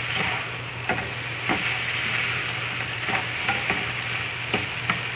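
Fried instant noodles and vegetables sizzling in a frying pan while being tossed with two wooden spatulas. The spatulas click and knock against the pan now and then.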